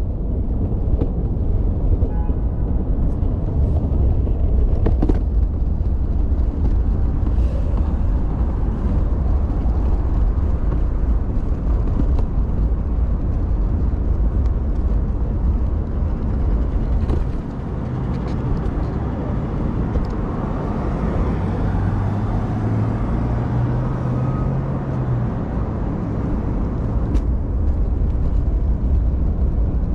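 Cat stroller being pushed along a city sidewalk, heard from inside the stroller: a continuous low rumble from the wheels rolling over pavement, with street traffic around and a few sharp knocks. A low steady hum comes in for a few seconds past the middle.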